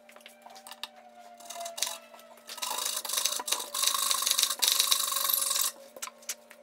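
A hand tool rasping across wood in quick strokes as the ends of glued-in dowels are trimmed flush. It is loudest from about two and a half seconds in to nearly six, with scattered light clicks around it and a faint steady hum underneath.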